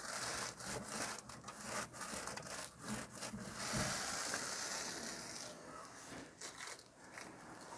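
An adhesive promoter wipe rubbed back and forth over the truck bed surface, a run of uneven hissing strokes with a longer steady wipe in the middle. This is the surface prep just before a stick-on fastener goes down.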